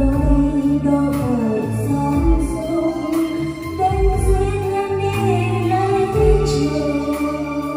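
A woman singing a Vietnamese song karaoke-style over a backing track, her voice and the music played back through a WeeWorld home karaoke system (C12 speakers, S1800 subwoofer). A deep bass thump every couple of seconds.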